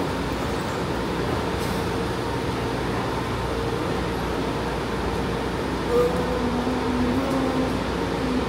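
São Paulo Metro train running in the station: a steady rumble with faint motor tones, and a brief louder tone about six seconds in.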